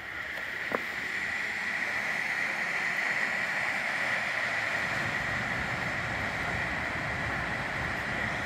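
Steady rushing roar of South Falls, a tall waterfall plunging into its pool. It swells over the first second or so, then holds level.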